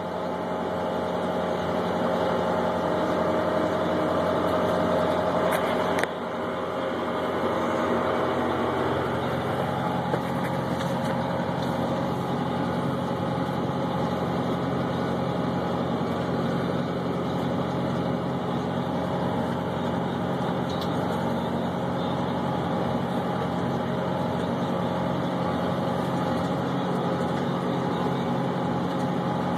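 John Deere 6420 tractor's diesel engine running steadily under load while pulling a rotary hay rake, heard from inside the cab. There is a brief knock about six seconds in.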